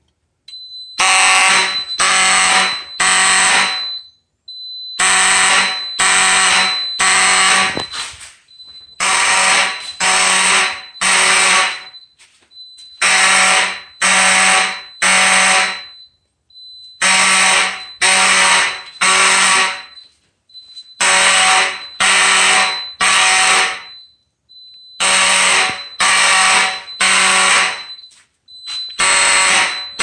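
Amseco BZ54VT motor horn sounding a fire alarm in the temporal code-3 pattern. It gives three loud blasts about a second apart, then a pause, and the group repeats every four seconds from about a second in.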